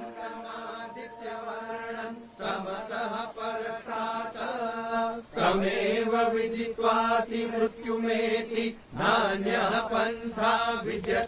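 Men's voices chanting mantras over a steady drone, getting louder about halfway through.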